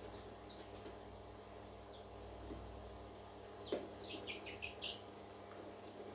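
Parrot chick peeping with faint, high-pitched cheeps. About four seconds in comes a sharp click, then a quick run of four or five falling cheeps. A steady low hum sits underneath.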